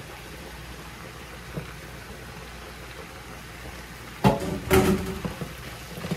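Ground turkey, onion and mushrooms sizzling quietly in a skillet. A little over four seconds in, a spatula stirs and scrapes against the pan in two loud strokes lasting about a second.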